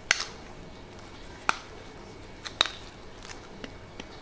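Metal filler knife clicking and scraping against a perspex sheet as fibreglass body filler is mixed with its hardener: three sharp taps roughly a second apart, among fainter ticks.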